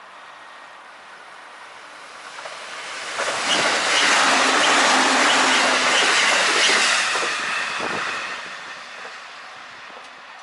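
Electric train passing at high speed on the Joban Line: a rushing noise builds over a couple of seconds, stays loud for about four seconds, then fades away.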